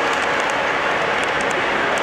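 O gauge model freight cars rolling past on three-rail track: a steady rolling noise of metal wheels on rail, with scattered faint clicks.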